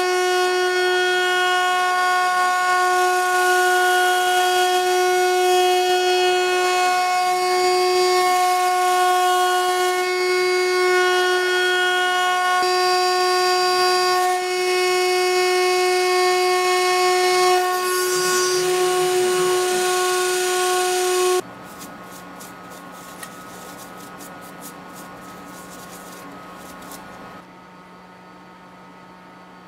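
Small CNC mill's high-speed spindle motor running, a steady high whine with a slight waver. About two-thirds of the way through it cuts off abruptly, leaving a quiet low hum.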